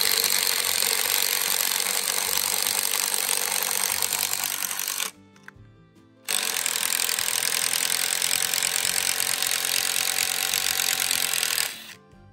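Powered post-hole auger boring into the ground, running hard in two long stretches with a short break about five seconds in.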